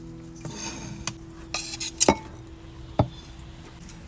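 Metal kitchen utensils knocking and scraping: a cleaver on a wooden chopping board and a spoon against a bowl, heard as about five sharp knocks spaced irregularly, with light scraping between them.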